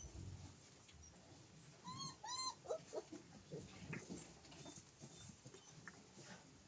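A dog whining: two short, high-pitched whines about two seconds in, with faint clicks and rustles around them.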